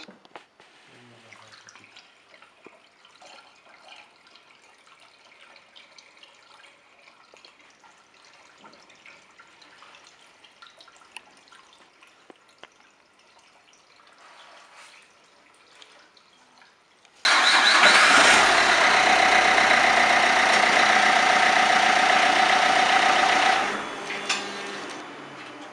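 Faint trickle of windscreen washer fluid poured through a funnel into the reservoir, then about two-thirds of the way in a Renault Laguna III dCi diesel engine comes in suddenly and runs loudly and steadily for about six seconds before dying away.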